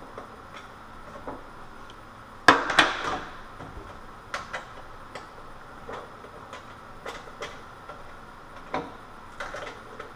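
Scattered light metallic clicks and knocks as a stubborn screw without a point is worked into a range hood's sheet-metal wiring cover, the loudest a pair of clanks about two and a half seconds in.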